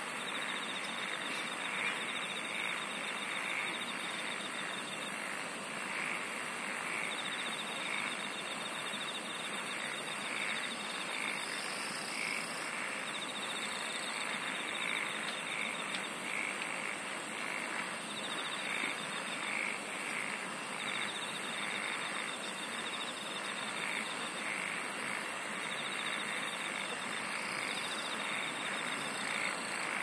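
Chorus of singing insects: high pulsing trills that come and go, a middle trill in stretches of a few seconds, and short lower chirps about twice a second, all over a steady background hiss.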